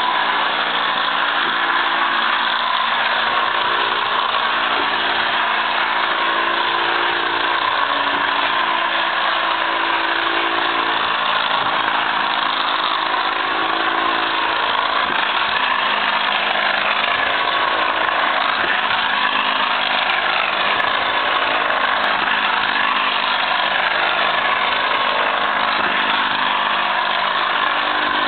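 D.R. Mercer type traction engine running as it moves: a steady mechanical noise with a low hum that slowly wavers in pitch.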